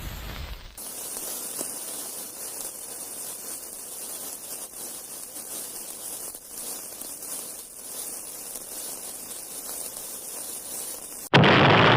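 A steady hiss sound effect, bright and high, lasting about ten seconds, cut off near the end by a sudden much louder burst of noise.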